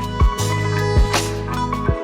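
Background music: a plucked guitar over a steady bass and a beat of drum hits about every half second.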